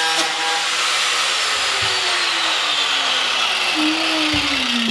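A small motor, like a power tool's, running steadily with a whine that slowly falls in pitch, and a dull thump about four seconds in.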